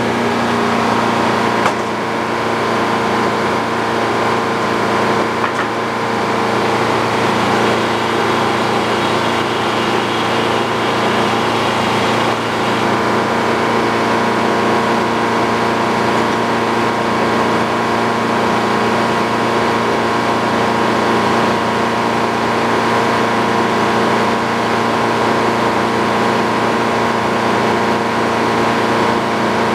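A sawmill's engine running steadily.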